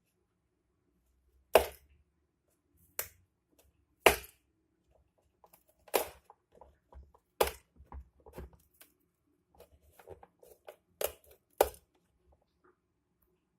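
Sharp clicks and knocks of kettle parts being handled while the kettle is taken apart: about seven loud snaps at uneven intervals, with smaller clicks and rattles between them.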